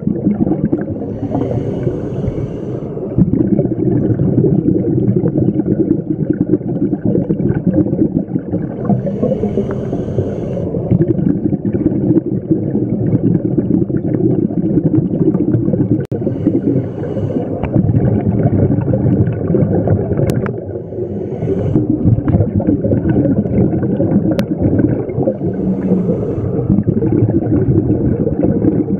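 Scuba breathing heard underwater through a regulator: a continuous bubbling rumble of exhaled air, with a brief hiss every few seconds.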